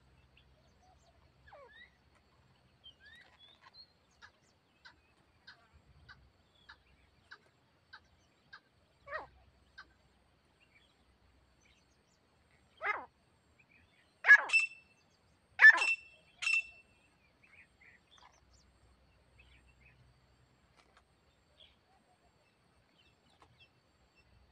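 Grey francolin (Indian grey partridge) calling: faint short notes spaced about half a second apart, then four loud calls in quick succession about halfway through.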